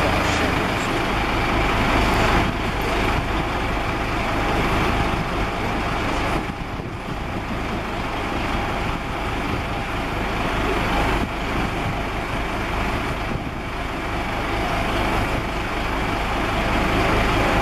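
Fire engine's diesel engine running steadily to drive its pump, a low drone under the loud, even hiss of water jetting from fire hoses.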